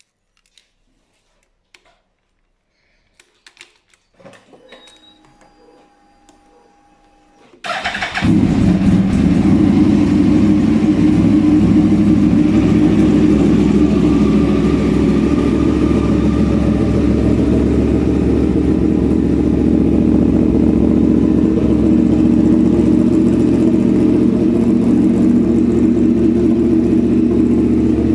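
Yamaha YZF-R1's crossplane inline-four breathing through an SC-Project exhaust: after a few faint clicks and a faint whine, it starts up about eight seconds in and then idles steadily and loudly.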